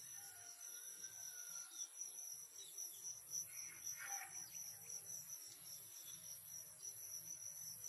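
Faint, steady high-pitched insect chorus, crickets or similar insects trilling without a break.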